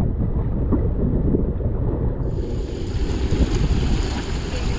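Wind buffeting the microphone while a small sailing catamaran moves fast over choppy water, with water rushing along the hull. About two seconds in, a brighter hiss of water joins in and stays.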